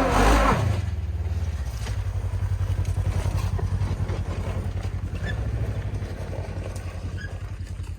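Off-road vehicle engine loud for the first half-second, then running at low revs with a low rumble that pulses quickly and evenly.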